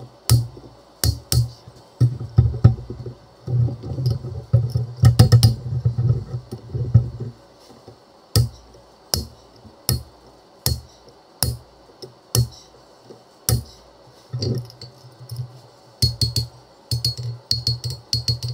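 Hand hammer striking a hot chisel driven into a glowing half-inch square steel bar on the anvil, cutting the grooves for a cube twist: sharp metallic blows, roughly one every three-quarters of a second, thickest in the first third, with music playing underneath.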